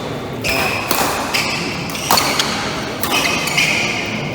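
Badminton rally: several sharp racket strikes on the shuttlecock, about a second apart, with shoes squeaking briefly on the court floor.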